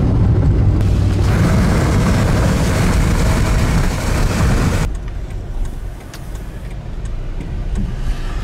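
Van driving: a steady low engine and road rumble under a loud rushing hiss. About five seconds in the hiss cuts off suddenly, leaving a quieter rumble.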